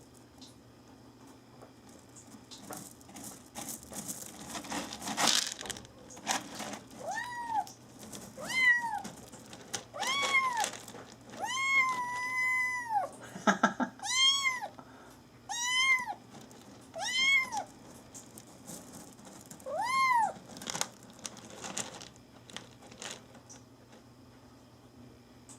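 Munchkin kitten meowing about eight times: short, high meows that rise and fall in pitch, with one longer held meow near the middle. Rustling and scratching noises come before and after the meows.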